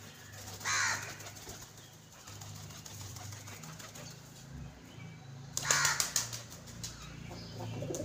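Pigeons' wings flapping as birds take off and land among a feeding flock: a short flutter just under a second in, and a louder burst of rapid wing beats about five and a half seconds in.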